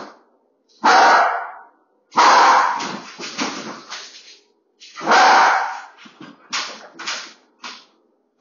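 Pembroke Welsh corgi barking in loud bursts a second or two apart, with shorter, quieter sounds near the end.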